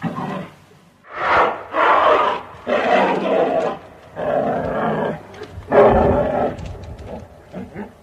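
Bear vocalizing: a series of about five loud, rough calls, each lasting under a second, followed by a few shorter, softer ones near the end.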